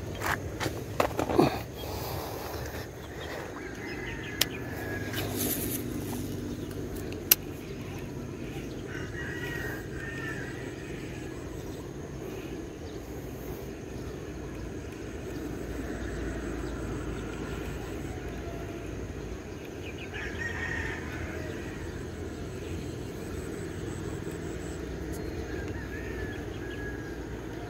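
Roosters crowing a couple of times, about ten and twenty seconds in, over a steady low background rumble. A few sharp clicks and knocks in the first seconds and a couple more later.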